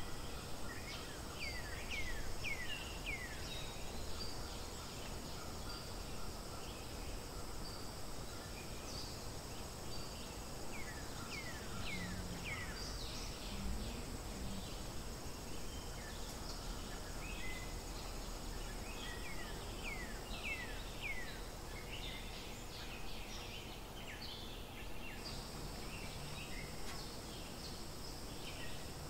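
Outdoor forest ambience: a steady high insect drone, with three runs of short, quickly falling chirps from birds.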